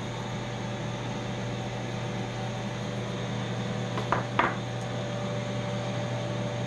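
Ninja Foodi Smart XL Grill preheating with its lid shut: a steady, very low hum. Two brief sounds come about four seconds in.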